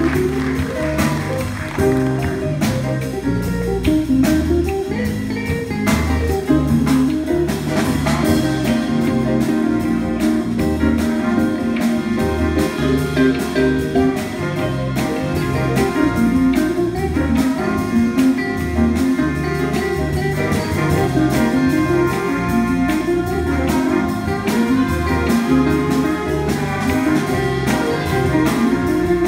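A jazz big band playing live, with a bass line stepping from note to note under guitar, piano and horns, and steady cymbal strokes from the drum kit.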